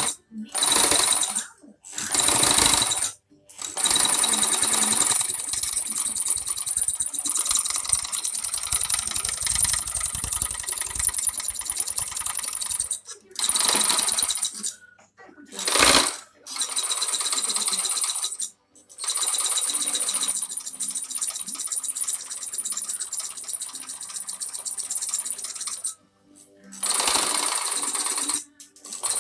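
Homemade scroll saw running, its blade clattering rapidly up and down as it cuts plywood, stopping and starting several times with brief silences between runs.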